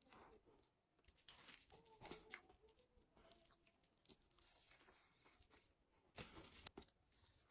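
Faint eating sounds: chewing with scattered wet mouth clicks and soft crackles, a little louder about six seconds in.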